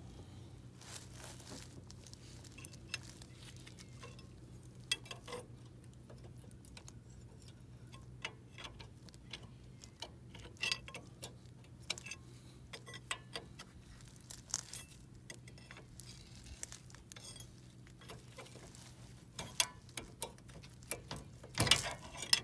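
Scattered metallic clicks and clinks of hand tools on a rear brake caliper, with ratchet-like clicking as the caliper's top bolt is worked loose. The clicks come in irregular clusters, busier in the second half, over a faint steady low hum.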